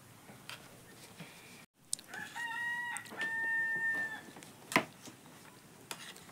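A rooster crowing once: one long call of about two seconds, beginning about two seconds in. A sharp click follows just after it.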